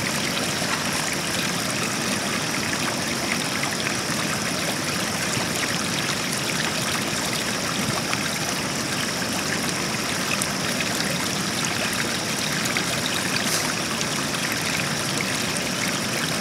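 Steady rushing of a swollen, flood-season river.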